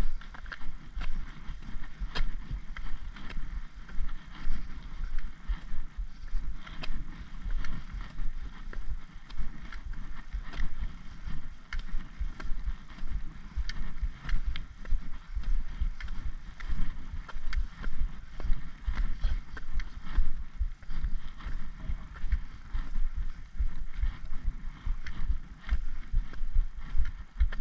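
Wind buffeting the camera microphone as a hiker walks up a steep tarmac road, with a steady rhythm of footsteps and sharp clicks of a trekking pole striking the road surface.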